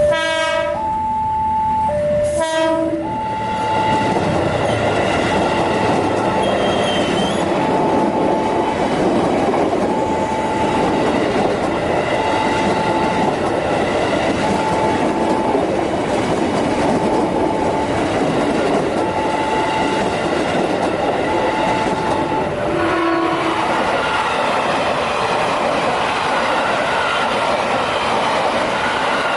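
A train passes a level crossing at speed close by, its wheels clattering and rumbling on the rails. Two short horn blasts sound near the start and another brief one at about 23 seconds, while the crossing's warning signal sounds a repeated tone, about once every second and a half, until shortly before the last blast.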